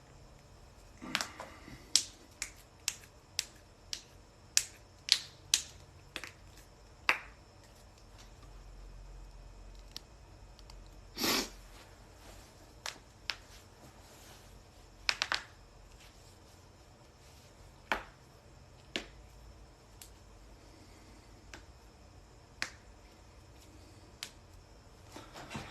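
Neck joints cracking: a run of sharp pops, coming in quick succession for the first several seconds, then a louder pop, a quick triple pop, and scattered single pops.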